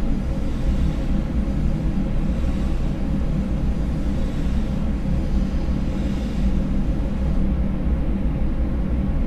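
Samples time-stretched up to 200 times their length, layered into a dense, steady drone that is heaviest in the low end. The high end thins out about seven and a half seconds in.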